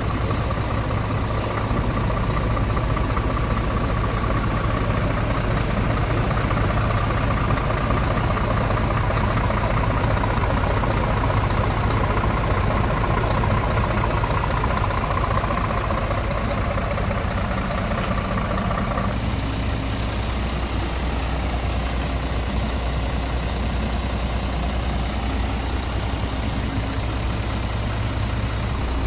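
Scania R450 tractor unit's 13-litre straight-six diesel engine idling steadily. A higher steady whine alongside it cuts off suddenly about two-thirds of the way through.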